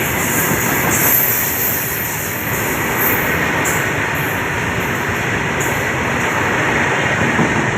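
A train running past on the track: a steady, loud rumble and rattle of wheels on rails.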